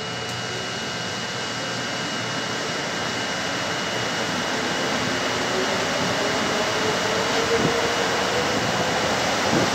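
Metro train running through a station and picking up speed, heard from inside the car: a steady running rumble that grows louder, with a faint motor whine rising slowly in pitch and a few light knocks near the end.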